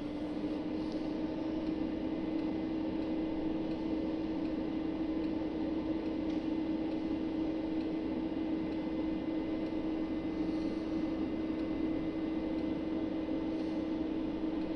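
AMI 207A orbital welding power source running its weld sequence: a steady machine hum that rises and settles in pitch just as it starts, over an even hiss. The machine is in the pre-purge stage, with shielding gas flowing before the arc strikes.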